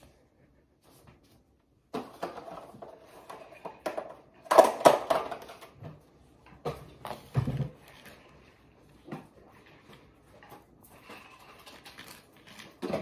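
Kitchen handling noises: knocks and clatter of plates and other items being picked up and moved, loudest in a cluster about halfway through.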